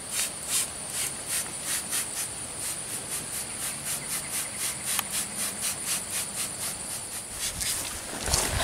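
A hand trigger spray bottle of scent-eliminator is pumped over and over, giving a short hiss about twice a second. Crickets chirp steadily in the background, and a louder low rustle comes near the end.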